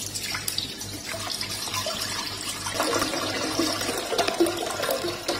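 Milk pouring in several streams at once from cartons into a large steel pot, splashing, getting louder about three seconds in as the milk collects in the pot.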